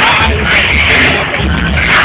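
Loud dance music with a heavy, repeating bass beat, played over loudspeakers.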